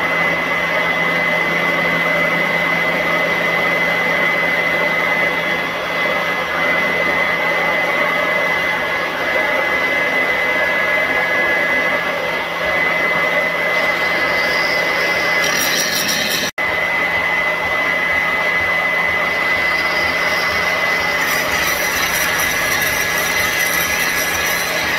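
Corded electric grinder running steadily against the steel inside an excavator bucket, with a constant high motor whine. It cuts out for an instant about two-thirds through.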